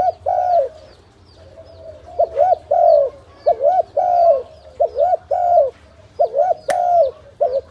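Spotted dove cooing over and over in phrases of short coos that end in a longer drawn-out coo, with a pause about a second in. Faint high chirps of small birds sound behind it, and there is one sharp click near the end.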